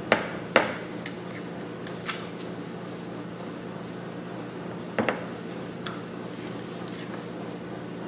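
Sharp clicks and taps of small feet being handled and pressed onto the corners of a wooden cutting board: two loud clicks at the start, a few lighter ones, and another pair about five seconds in, over a steady low hum.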